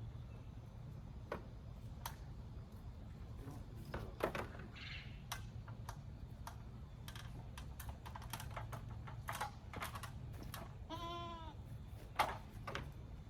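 A single bleat from a farm animal, one wavering call of about half a second, near the end. Scattered sharp clicks and knocks run throughout over a low steady hum.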